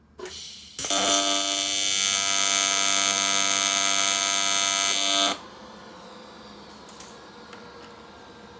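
AC TIG welding arc on aluminum buzzing steadily for about four and a half seconds while a tack weld is laid on intercooler pipe, after a short hiss as the arc starts. It cuts off sharply, and a quieter steady hum carries on.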